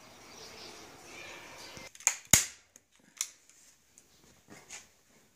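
Hand staple gun firing staples into a wooden stretcher frame while canvas is stretched over it: a series of sharp snaps, the loudest about two and a half seconds in, then fainter clicks. A soft steady hiss comes before them.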